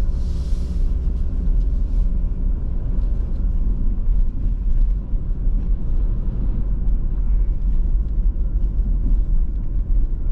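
Steady low rumble of a car's engine and tyres heard from inside the cabin as the car pulls away and speeds up, with a brief hiss near the start.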